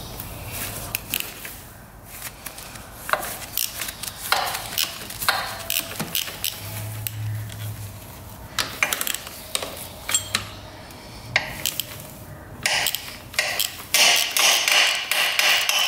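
Hand tools and loose metal parts clicking and clinking irregularly while bolts are taken off a Kawasaki KX125 dirt bike engine's top end, with a louder stretch of dense metallic clatter near the end.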